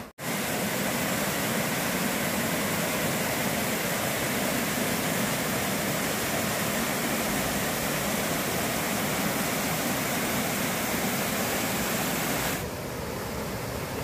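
Mountain stream water rushing steadily over rock cascades and small waterfalls. There is a short dropout at the very start, and the sound steps down in loudness about twelve and a half seconds in, where it cuts to another cascade.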